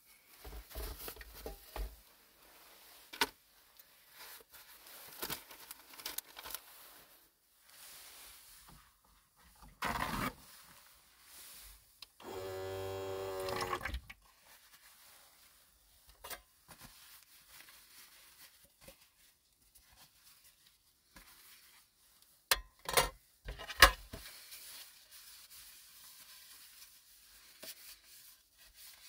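Small handling sounds: scattered rustles and clicks, a paper towel torn from its roll, a steady electric hum for under two seconds a little before halfway, and a short burst of sharp knocks and clatter about three quarters through, the loudest moment.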